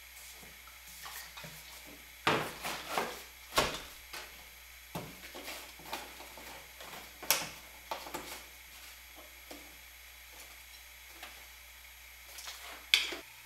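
Irregular clicks, knocks and rattles of plastic and metal parts being handled in a car's engine bay as it is put back together, with the sharpest click about a second before the end.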